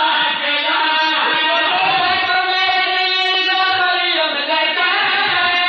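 A group of men chanting a slow, melodic devotional lament in unison into microphones, with long held notes that bend slowly in pitch and no pause.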